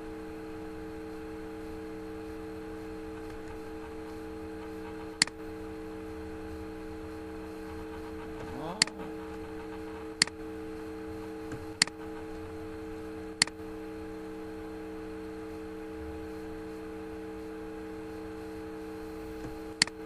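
Steady electrical hum of room tone, broken by five sharp, separate clicks of a computer mouse as a wing outline is drawn.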